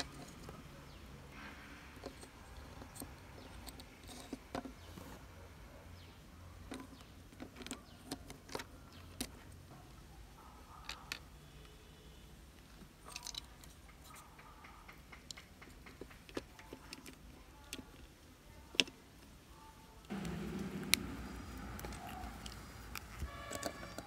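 Small hard plastic RC car parts clicking and tapping against each other and the wooden bench as a gearbox and gears are fitted together by hand: scattered light clicks, with the background growing louder about 20 seconds in.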